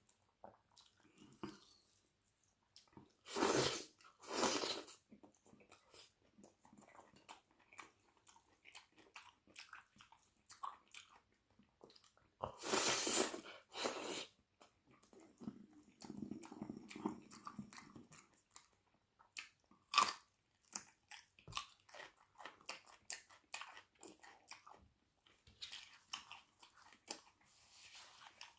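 Close-miked eating: loud crunching bites in two pairs, a few seconds in and again near the middle. Between them come wet chewing and small mouth clicks as chicken wing curry with rice, onions and mango salad is eaten.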